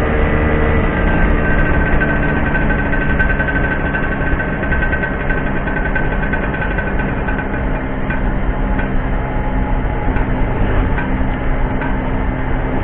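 Classic Vespa scooter's single-cylinder two-stroke engine running steadily while riding at cruising speed, heard from the rider's seat.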